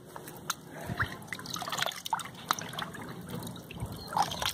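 Shallow water in a nearly drained pond liner dripping and splashing lightly, in many small irregular plinks, as a hand mesh strainer is worked through it.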